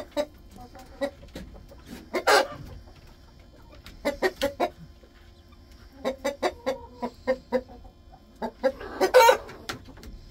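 Chickens clucking as they settle on the roost: runs of short clucks, with two louder, longer calls about two seconds in and near the end.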